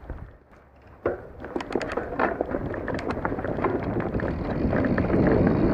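Astrix Stryke full-suspension mountain bike setting off on a dirt trail. After an almost silent second comes a sharp knock, then a run of clicks and rattles from the bike, then rising rushing noise from tyres and wind on the microphone as it picks up speed.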